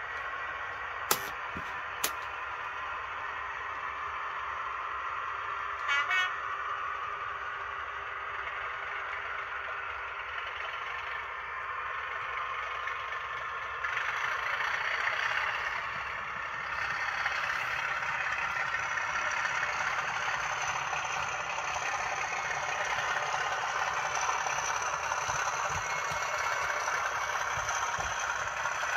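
Model train running on a layout: the steady rolling and motor noise of a locomotive and Mk5 coaches on the track, growing louder about halfway through. Two sharp clicks come about one and two seconds in, and about six seconds in there is a short horn toot from the locomotive's sound decoder.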